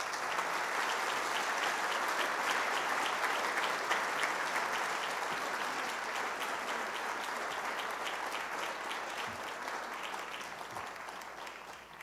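Audience applauding, a dense patter of many hands clapping that slowly dies away near the end.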